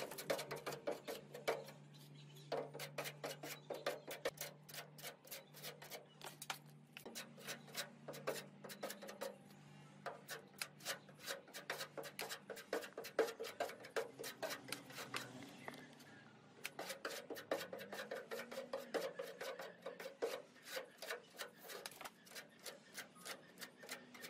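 Metal putty knife scraping white filler across a steel car body panel in quick, repeated strokes, several a second, over a faint low hum.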